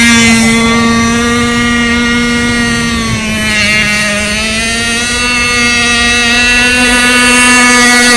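Radio-controlled model racing boat's small nitro engine running flat out, a steady high-pitched drone; its pitch sags slightly about three and a half seconds in, then climbs back.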